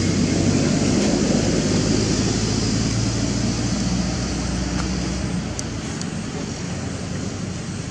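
A steady, low engine drone with a hiss over it. The deepest part fades out about five seconds in and the whole sound slowly grows quieter.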